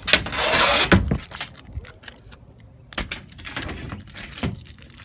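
Sheet-metal access panel of a Lennox heat pump's air handler being handled and pulled off: a loud metallic rattle and scrape in the first second, then a couple of sharp knocks about three and four and a half seconds in.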